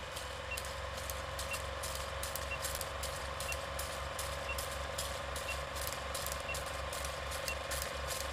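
Old-film countdown leader sound effect: a film projector running with a fast low flutter and a steady hum, crackling pops from the film, and a short high beep once a second as the numbers count down.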